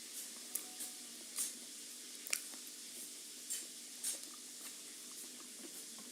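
A person eating chicken and rice: short, wet chewing smacks and mouth clicks at irregular intervals over a steady faint hiss.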